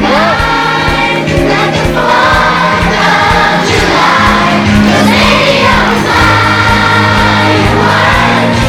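A group of young children singing together in unison over music with a steady beat.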